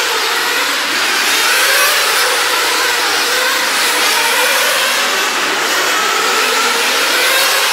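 A pack of nitro RC sprint cars racing, their small two-stroke glow-fuel engines whining together at high revs. The pitch of the engines keeps rising and falling as the cars lift and accelerate around the oval.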